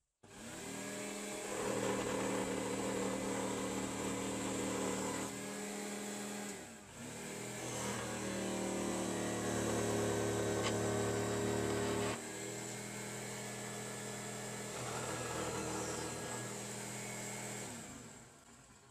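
Jigsaw mounted upside down under a table, running and cutting through a small block of wood: a steady motor hum whose pitch shifts as the blade takes the load, dipping briefly about a third of the way in, then winding down near the end.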